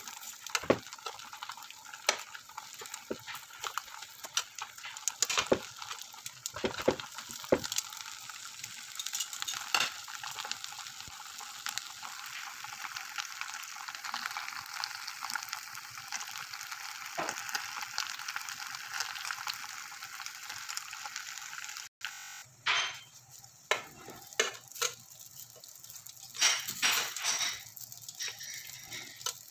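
Wrapped kebab sandwiches sizzling on a hot grill pan, a steady hiss with scattered clicks and pops. About two-thirds through the sizzle suddenly drops, and metal tongs click against the wire grate as the rolls are turned.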